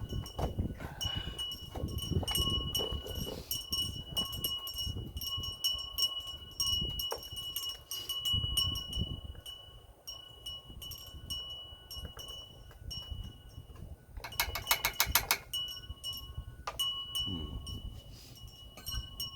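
Hand-tool work on a generator being taken apart: irregular knocks, scrapes and clatter of metal and plastic parts being handled. About fourteen seconds in comes a burst of rapid clicking lasting a second and a half, like a ratchet wrench being turned.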